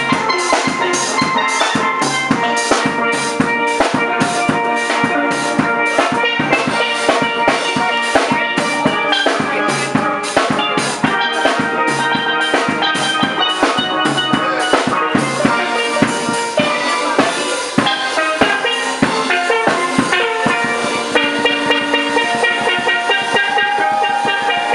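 Caribbean steel pan music over a drum kit keeping a steady beat of about two strokes a second.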